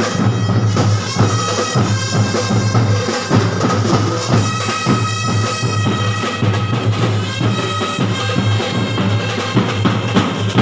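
Drum and bugle corps playing: brass horns hold sustained chords over a drumline beating steadily throughout.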